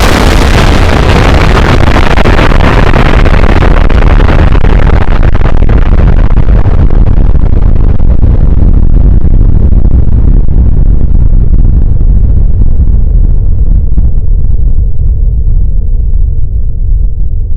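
Explosion sound effect: a very loud blast that starts all at once, then a deep rumble that continues as its hiss slowly fades over the next dozen seconds.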